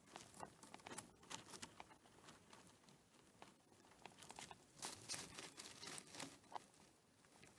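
Faint crinkly rustling and small irregular clicks from a hamster, a little busier about five seconds in.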